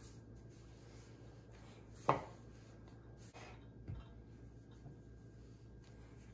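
Hands kneading and pressing dough on a floured countertop: soft rubbing and scraping, with a sharp knock about two seconds in and a lighter one about two seconds later. A steady low hum sits underneath.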